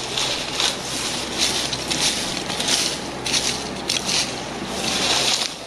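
Rough, irregular rustling and scraping noise that surges in short bursts every fraction of a second.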